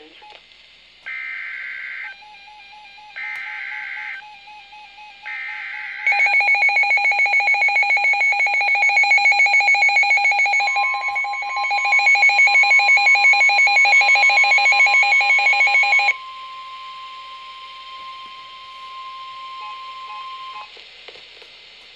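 Emergency Alert System tones. Three buzzy SAME header data bursts, each about a second long with about a second between them, are followed by the loud, pulsing EAS attention signal for about ten seconds. A steady single-pitch warning tone joins about halfway through the attention signal and carries on alone, quieter, for a few seconds after it stops.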